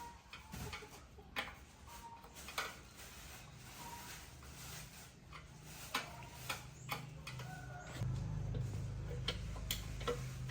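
Scattered light clicks and taps, with a low steady hum coming in about eight seconds in.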